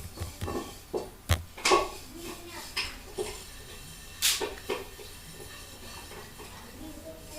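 A handful of sharp, separate clicks and clinks of hard objects being handled or set down, scattered through the first five seconds, over a low steady background.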